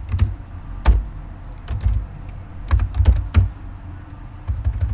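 Typing on a computer keyboard: irregular keystrokes in short clusters, each click carrying a low thump.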